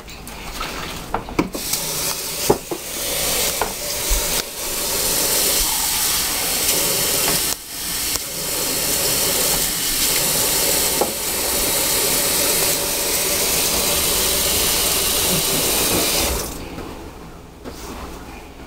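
Kitchen tap running water into a glass measuring cup, a steady rushing hiss that cuts off sharply about sixteen seconds in. A few knocks sound near the start, and the flow dips briefly once partway through.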